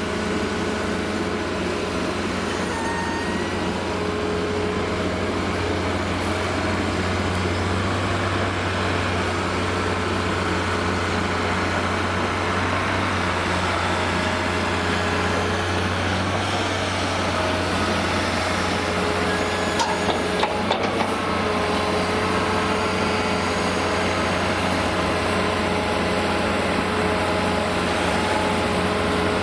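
Heavy tipper trucks' diesel engines, a Mercedes-Benz Actros among them, running steadily as the trucks drive, with a low hum throughout. A short cluster of knocks about two-thirds of the way through.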